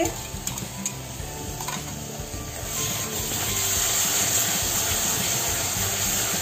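Onion paste frying in hot oil and butter in a kadhai, sizzling while a steel spatula stirs and scrapes it around the pan; the sizzle grows louder a few seconds in.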